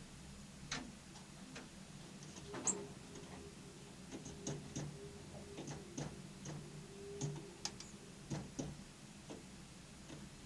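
Small birds pecking and tapping: irregular light clicks, a few a second, with a few short faint high chirps.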